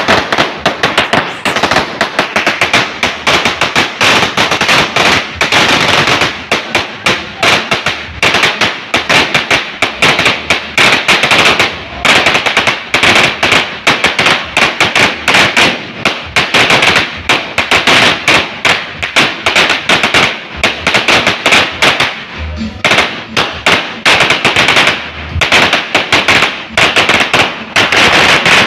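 A 1,000-round firecracker string going off along the ground, its crackers bursting in a rapid, unbroken run of loud bangs like machine-gun fire.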